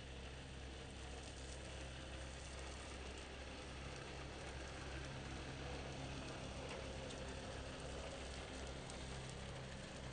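Toro walk-behind lawn mower engine running steadily, heard faintly as a low hum under an even hiss.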